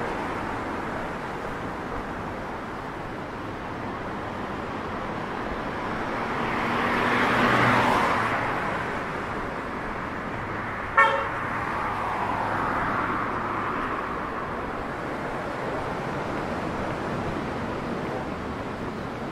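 Steady road traffic, with one vehicle passing and swelling louder about a third of the way in. A single short car-horn toot sounds a little past halfway.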